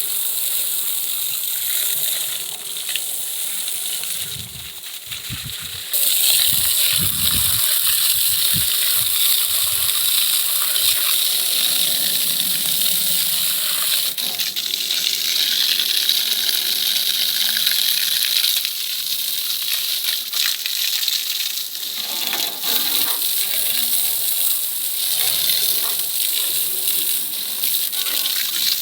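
Water jet spraying hard against a JCB 3DX backhoe loader's metal bodywork during a wash, a steady hissing spray that gets louder about six seconds in.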